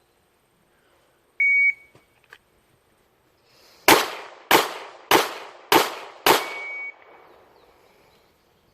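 A short electronic beep, then five pistol shots fired at a steady pace about 0.6 s apart from a Glock 26 9mm handgun, emptying a five-round magazine.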